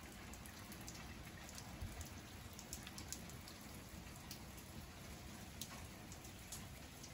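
Light rain: scattered drops ticking over a faint steady hiss.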